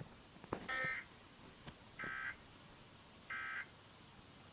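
Emergency Alert System end-of-message (EOM) data signal: three identical short bursts of SAME digital data tones, about 1.3 seconds apart, marking the end of the flood warning broadcast. A faint click comes just before the first burst.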